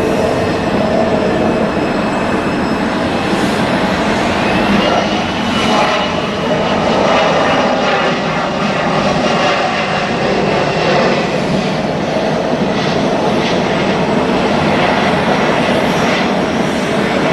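Jet airliner's engines running steadily, with a high whine that rises about four and a half seconds in and holds level until about eleven seconds.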